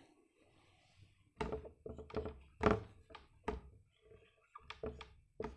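Marker writing on a wall-mounted whiteboard: an irregular run of short taps and knocks as the strokes are drawn, starting about a second and a half in.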